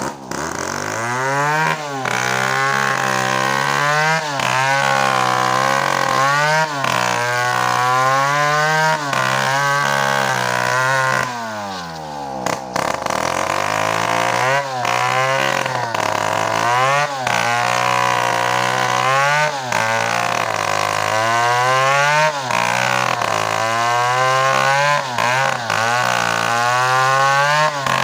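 Stihl two-stroke chainsaw cutting coconut wood. The engine revs up at once, then runs at high speed with its pitch sagging and recovering every second or two as the chain loads in the cut. About twelve seconds in it drops almost to idle, then revs back up.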